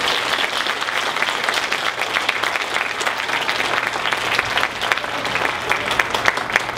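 Audience applauding at the end of a song; the dense applause thins near the end into scattered individual claps.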